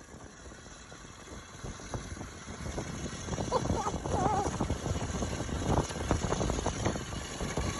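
Sled being towed fast over snow behind an adaptive e-bike: runners and tyres hiss and scrape over the snow with many small bumps and rattles. It grows louder about two seconds in as the pace picks up.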